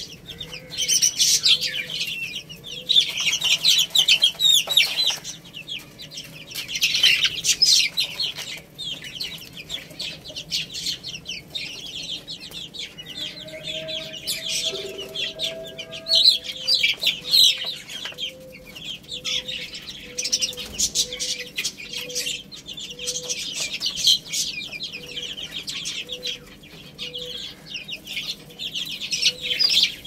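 A brood of baby chicks chirping, many high peeps overlapping and swelling louder every few seconds.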